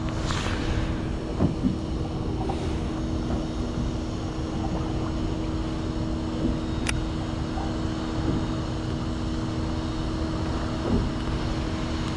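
A steady mechanical hum holding two low tones over a constant low rumble, with a few faint clicks.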